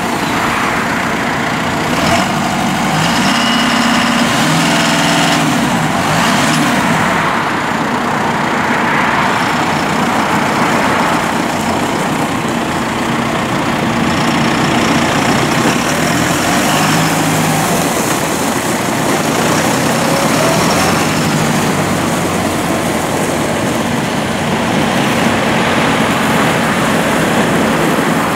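A John Deere 5085E tractor's turbocharged four-cylinder diesel running as the tractor drives along. The engine note rises and falls several times as it changes speed.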